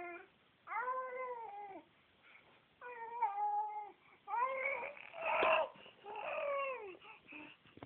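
A baby vocalizing in a string of drawn-out coos, about six of them with short pauses between, each arching up and then falling in pitch. One in the middle has a rough, buzzy edge.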